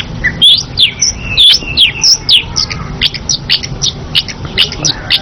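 Long-tailed shrike (cendet) singing energetically: a fast run of sharp, high chirps that sweep downward, several a second. Two short knocks sound early on.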